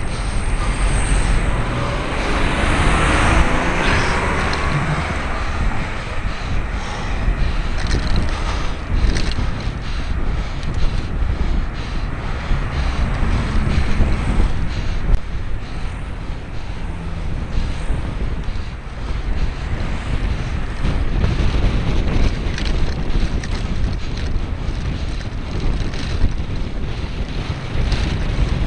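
Wind rushing over a helmet-mounted camera's microphone while riding a bicycle along a road, a steady low rumble with road noise. A louder hiss swells and fades about three seconds in.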